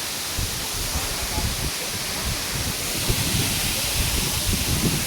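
Steady rush of falling water, with wind gusting on the microphone underneath.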